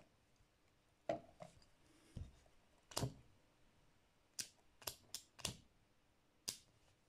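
A vintage Ronson Varaflame butane lighter being handled and lit: about nine sharp metallic clicks and light knocks at uneven intervals from its lid, lever and wheel.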